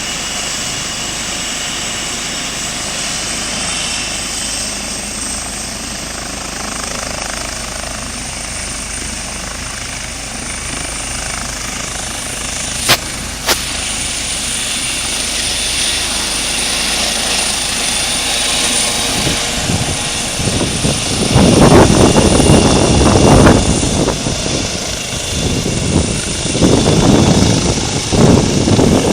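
Helicopter sounding steadily and slowly getting louder, with two sharp clicks about halfway through. In the last third, loud irregular rumbling gusts take over.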